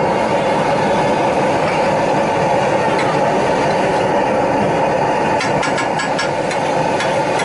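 Steady loud sizzling roar of liquid and vegetables cooking on a large street-food pav bhaji griddle (tawa). From about five and a half seconds in, a steel spatula taps and scrapes on the griddle in quick clicks.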